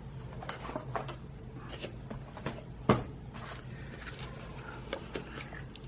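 Light clicks and rustles of a small cardboard box and its paper inserts being handled, with one sharper tap about three seconds in.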